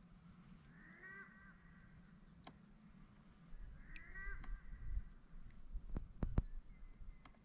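A crow calling twice, about a second in and again about four seconds in. Near the end come a few sharp clicks over a low rumble.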